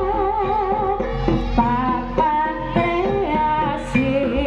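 Live Javanese jaranan-style ensemble music: a wavering melody line with heavy vibrato over frequent drum strokes.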